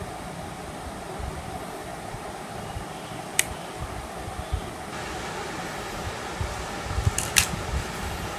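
Steady whir of a fan in the background, slightly louder about five seconds in, with low bumps of hands handling things near the microphone and sharp clicks, one about three and a half seconds in and two close together near the end.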